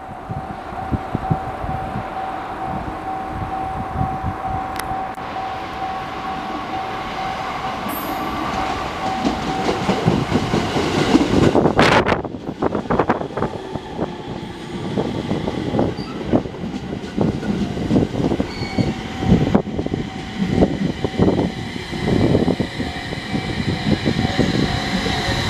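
JR East 701 series electric train pulling in and running along the platform, its wheels clattering over the rail joints. A level-crossing warning bell rings steadily underneath. About twelve seconds in there is a brief loud burst of noise.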